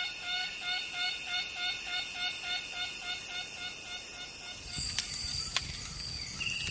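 Tropical forest ambience at dusk: a repeated pitched call pulsing about three times a second, fading out after about four seconds. Then a steady high insect whine, with faint rustling and a few sharp clicks.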